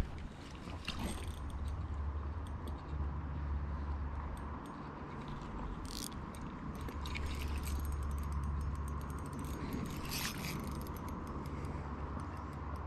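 Fishing reel being cranked to retrieve line, a steady gear whir with fine clicking, over a low wind rumble on the microphone.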